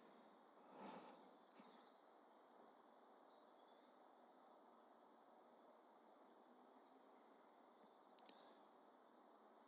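Near silence: a faint, steady outdoor ambience hiss with occasional short trains of insect chirps, and a single sharp click near the end.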